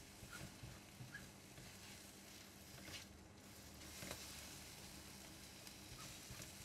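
Scrambled eggs sizzling faintly in a wok, with a few soft scrapes of a spatula stirring them across the pan.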